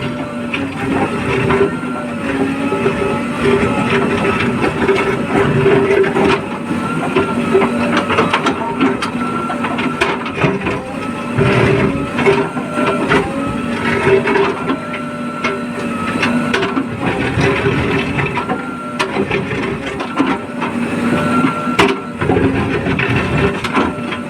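Diesel engine and hydraulics of a JCB backhoe loader working under load, its pitch rising and falling again and again, with scattered clanks.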